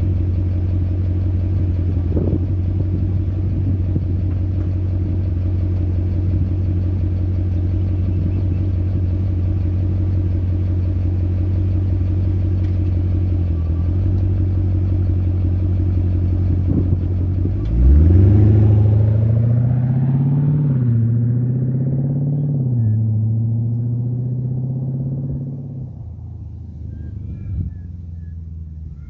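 Jeep Grand Cherokee SRT8's 6.4-litre Hemi V8 idling steadily with an audible Hemi tick, put down to the lifters. About 18 seconds in it accelerates away, its pitch rising and dipping through gear changes, and fades into the distance.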